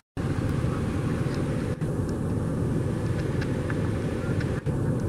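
Car running, heard from inside the cabin: a steady low hum of engine and road noise.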